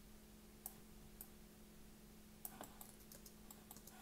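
Faint clicks from a computer keyboard and mouse: two or three single clicks, then a quick run of key taps in the last second and a half, over a low steady electrical hum.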